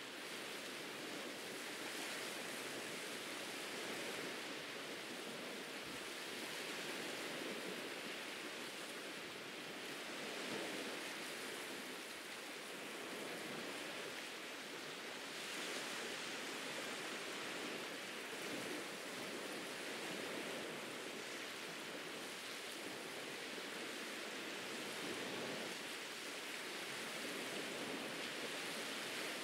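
Ocean surf washing onto a beach: a steady hiss of breaking waves that swells gently every few seconds.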